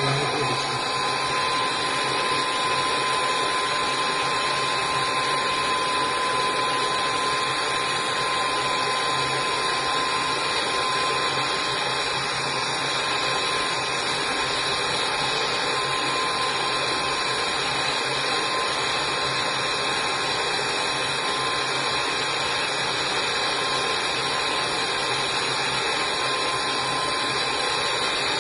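Gas torch burning with a steady hiss, heating copper tubes being brazed with borax flux.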